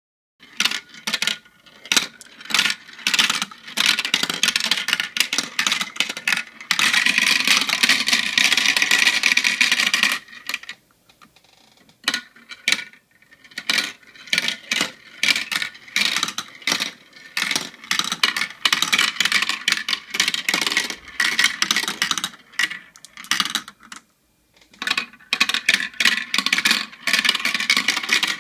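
Marbles running down a toy marble run: quick clicks and clacks as they drop and strike the track pieces, with a long stretch of continuous rattling partway through and brief pauses between runs.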